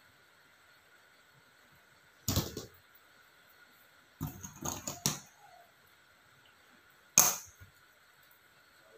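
Handling knocks and clicks from working a cage frame of black rods by hand: one knock about two seconds in, a short rattling run of clicks around the middle, and a sharp single click, the loudest, near the end.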